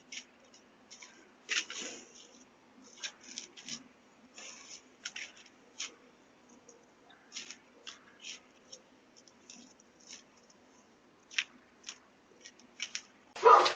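A door lock and handle being tried, heard through a doorbell camera's microphone: a long run of irregular sharp metallic clicks and rattles over a faint hum, with a louder clatter near the end.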